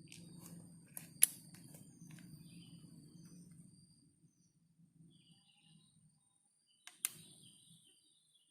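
Sharp clicks, a pair about a second in, the second much louder, and another pair near the end, over a low rumbling handling noise that fades out about two-thirds of the way through. A thin steady high whine, like an insect, runs behind them.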